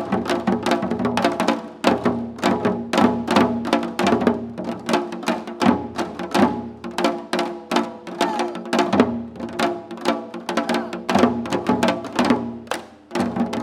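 Korean janggu drums played together in seoljanggu style: dense, fast strikes, several a second, over a steady sustained pitched accompaniment.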